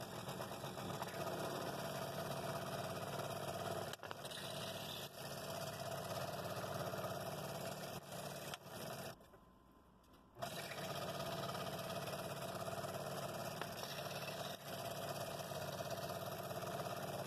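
A scroll saw running, its reciprocating blade cutting through a wooden block with a paper pattern on it, a steady mechanical buzz. The sound drops away for about a second around nine seconds in, then carries on.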